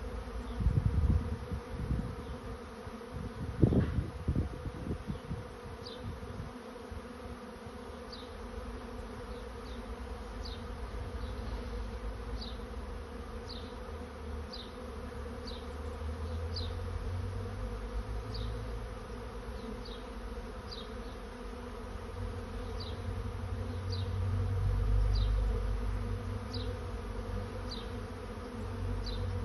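A honey bee swarm in flight: the steady, dense hum of many bees, with a low rumble underneath. A few thumps stand out about a second in and again around four seconds in.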